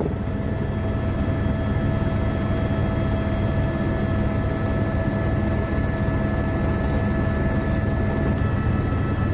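Steady drone of an aircraft in flight heard from inside the cabin: a low engine hum with a few constant whining tones above it, one of which fades out near the end.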